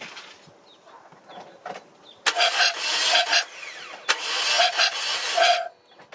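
Starter motor cranking a 2009 Toyota Matrix engine that does not fire, a raspy whir with an even pulsing from the compression strokes, during a compression test. It starts about two seconds in, stops briefly near the end and cranks again. The engine's compression is low, about 75 psi in every cylinder.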